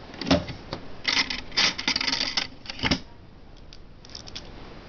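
Clattering and clicking of plastic HO-scale model train cars and their boxes being handled in a wooden crate: a run of sharp knocks and rattles for about three seconds, then a few faint ticks.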